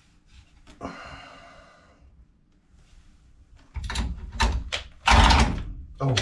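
Parts and tools being handled and rummaged through: a run of clattering knocks and rustles starting a little before four seconds in, loudest just after five seconds in.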